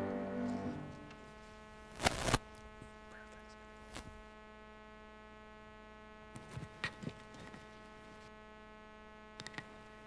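Steady electrical mains hum, with the last chord of the accompanying music fading out in the first second. A few short knocks and rustles cut through it, the loudest about two seconds in and smaller ones later.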